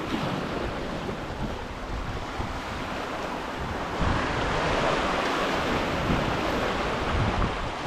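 Sea waves washing and breaking over rocks at the water's edge, with wind buffeting the microphone. The wash grows louder about four seconds in.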